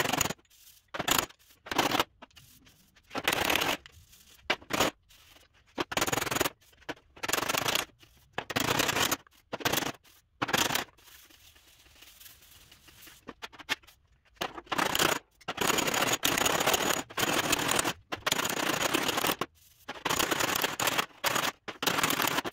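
Body hammer striking a steel truck door panel on a dolly held behind it, in quick runs of rapid blows with short pauses, the longest run near the end. The blows work the welded seam and crush the weld back flat.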